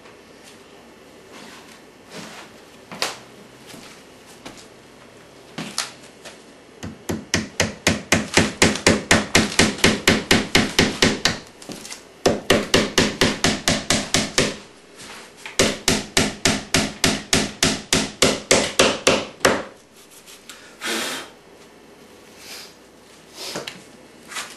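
Hammer tapping on the edge of a countertop: a few single knocks, then three long runs of quick, even blows at about four or five a second with short pauses between, then a few more single knocks near the end.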